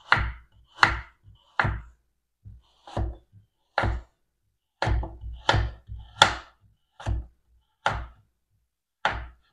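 Chef's knife slicing through a calabresa sausage and knocking down on a wooden cutting board: about a dozen sharp knocks at an uneven pace, roughly one a second or a little faster.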